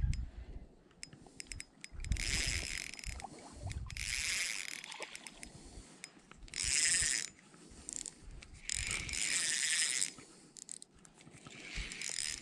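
Spinning reel whirring in five short bursts of about a second each while a brown trout hooked on a jerkbait is being played.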